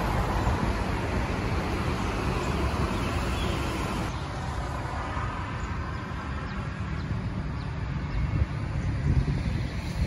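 Steady road traffic noise from a nearby avenue: an even rushing hum with a low rumble.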